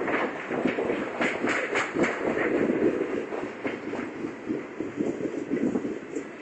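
Double-stack intermodal freight train rolling past: a steady rumble of cars on the rails with irregular wheel clatter.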